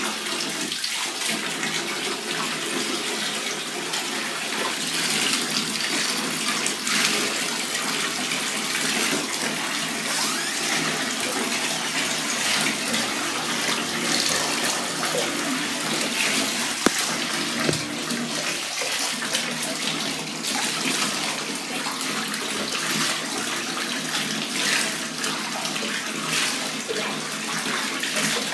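Water running steadily into a bathtub, splashing on the tub and on a small dog being washed.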